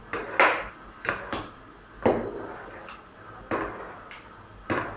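Forks scraping and raking through buttered, steamed couscous grains in a large wooden dish, a series of short, irregular scratchy strokes.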